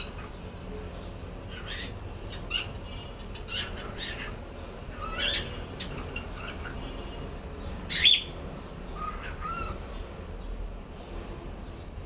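Cockatiel calling to itself: a string of short chirps and squawks with gaps between them, the loudest squawk about eight seconds in.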